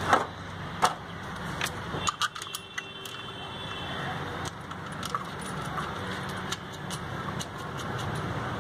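Scattered light metallic clinks and clicks from hands handling the distributor and nearby engine parts, several in quick succession about two to three seconds in, over a steady low background hum.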